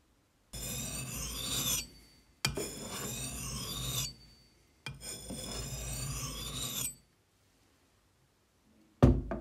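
Hatchet blade edge drawn across a sharpening stone in three long strokes, steel scraping on stone with a high ringing squeal: a last fine sharpening of the edge. Near the end comes a single sharp knock, the loudest sound, as the axe head is set down on the wooden workbench.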